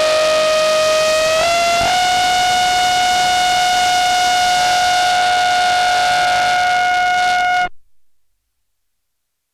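Sine wave through an analog low-pass filter into an Erica Synths / Gamechanger Audio Plasma Drive distortion module: a sustained distorted synth tone with a bright stack of overtones. Its pitch glides up a little about a second and a half in, with a click just after. The tone cuts off suddenly near the end.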